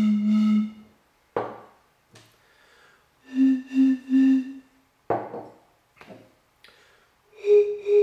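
Blowing across the mouths of three glass Coke bottles partly filled with water, one after another: each gives a breathy, slightly pulsing tone about a second long, and each tone is higher than the last. The bottle with the least water sounds lowest and the one with the most water sounds highest. Short breaths are heard between the notes.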